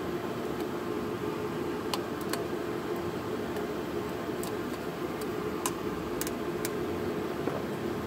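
Scattered light clicks and taps from handling the transmission shift cable and its linkage under the truck, over a steady hum.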